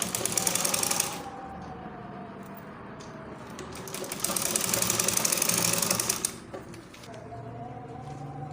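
Electric sewing machine stitching a zipper seam in two runs of rapid needle strokes, a short one at the start and a longer one of about two seconds midway, with a quieter hum between them.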